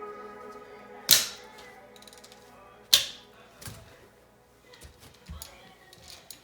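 Two sharp clanks with a ringing tail, about a second and three seconds in, then a string of lighter clicks and taps: metal tools and parts being handled during an engine teardown.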